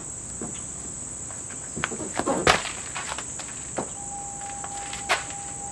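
Steady high-pitched insect chirring, with scattered sharp clicks and knocks of a small part being handled and fitted; a thin steady tone comes in about four seconds in.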